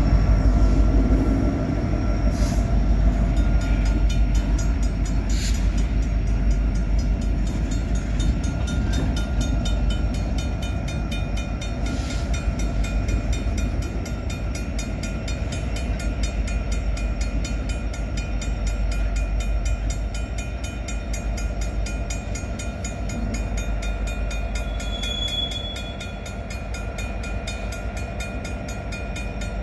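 Freight train moving slowly through a yard, with its EMD SD70M-2 diesel locomotives giving a steady low rumble and hum. A few sharp metallic clanks come in the first dozen seconds, and there is a brief high squeal about 25 seconds in.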